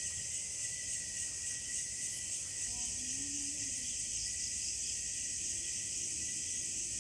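Night insects, crickets among them, singing in a dense, steady chorus: a continuous high-pitched shrill drone with a thin steady whistle-like tone under it.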